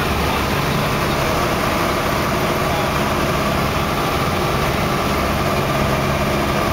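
A light airplane's engine and propeller drone steadily in flight, heard inside the cabin. The level and pitch stay even throughout.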